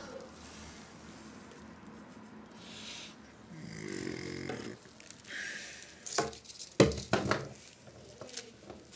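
A short low hum or throat noise about four seconds in, then a cluster of sharp clicks and knocks, the loudest just before seven seconds, from hands handling parts and wires in the opened plastic chassis of a Philips D6350 cassette recorder.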